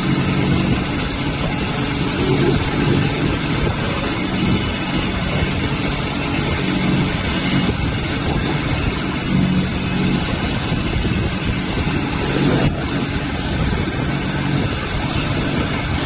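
Steady hum and whir of an automatic polishing machine in operation: electric motors driving spinning fabric polishing wheels.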